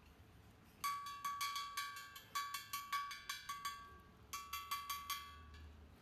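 Quick run of sharp, ringing metallic taps, about five a second, that stops for about half a second and then goes on for about another second.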